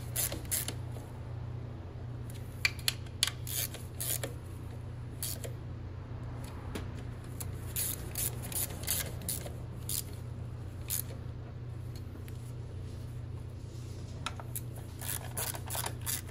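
Hand ratchet clicking in short, irregular runs as the 10 mm valve cover bolts are tightened by hand, each one snugged down by feel rather than with a torque wrench.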